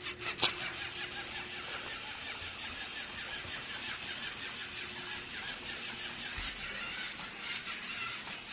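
Lego Mindstorms NXT servo motors driving a small wheeled robot cart across a tile floor, a steady high geared whirring that wavers slightly, with a sharp click about half a second in.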